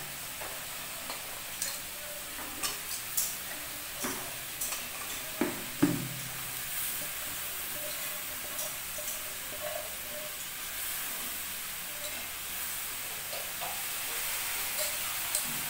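Chopped banana blossom and diced potato frying in hot mustard oil in a steel kadai, with a steady sizzle. Several knocks and clatters in the first six seconds as the pieces go into the pan.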